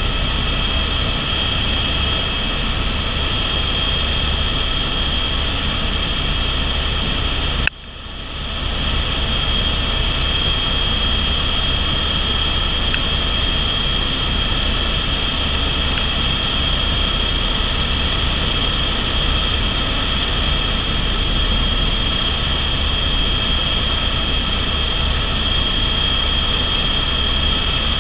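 Cabin sound of an Airbus AS350/H125 Écureuil helicopter in cruise: a steady, loud high-pitched whine over a low rotor drone. About eight seconds in, a sharp click and a sudden dip in level that comes back up over a second or so.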